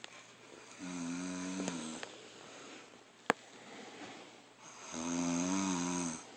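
A woman snoring: two long, pitched snores about four seconds apart, with quieter breathing between them and one sharp click in the middle.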